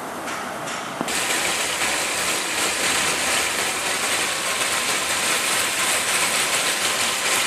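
Chicken pieces frying in oil in an aluminium pot: a steady sizzle that starts suddenly about a second in.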